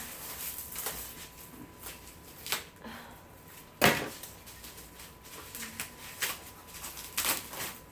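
Scattered knocks, clicks and rustles of bicycle parts and packaging being handled, the sharpest knock about four seconds in.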